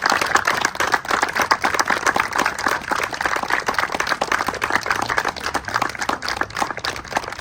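A crowd applauding: many hands clapping in a dense, irregular patter.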